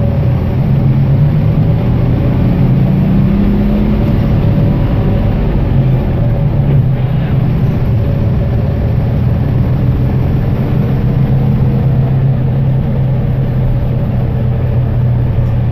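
Detroit Diesel 6-71 inline-six two-stroke diesel of a 1969 Flxible Flxliner bus, heard from inside the passenger cabin under way. The engine note climbs over the first few seconds, falls away about four to five seconds in, then runs steadily at a lower pitch.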